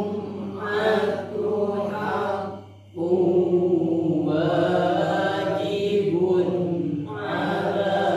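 Voices chanting an Arabic sentence in unison, each syllable drawn out in long held tones as in tajwid practice. The recitation breaks off briefly just before three seconds in and dips again about seven seconds in.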